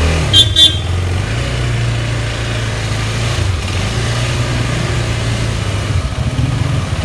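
250 Adventure motorcycle's engine running steadily at low speed, with two short horn beeps about half a second in.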